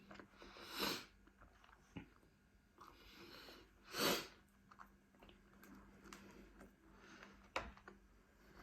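Close-up eating and breathing sounds of a person eating pizza: faint chewing clicks, with two short, sharp breaths through the nose about a second and about four seconds in.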